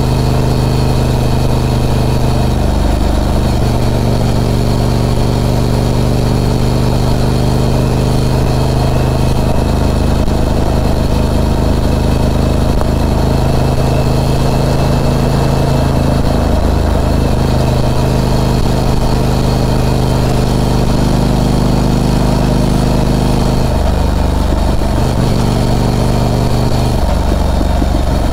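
Harley-Davidson Pan America's Revolution Max 1250 V-twin running steadily, its pitch shifting several times as the throttle changes.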